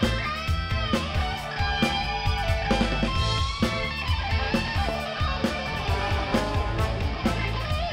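Live band playing an instrumental passage: electric guitar over a steady drum beat and bass.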